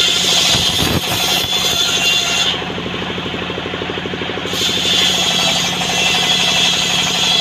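Engine-driven circular saw ripping trembesi wood: the engine runs steadily with a fast even beat, and the blade cutting through the plank adds a loud hiss. The cutting hiss drops away for about two seconds near the middle and comes back as the blade bites into the wood again.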